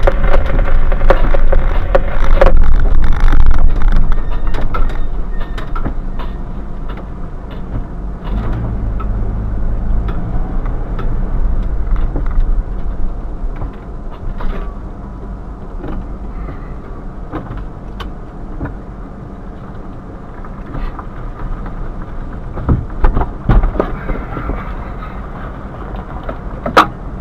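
Car cabin noise: engine and road rumble while driving, dying away over several seconds as the car slows and stops, then a low steady engine hum while it stands. A few sharp clicks and knocks come near the end.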